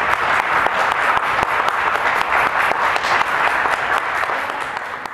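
Audience applauding, a dense round of clapping that dies away near the end.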